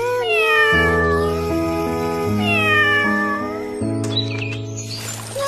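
A kitten meowing twice in long, drawn-out calls, one at the start and one about halfway through, over background music of held chords.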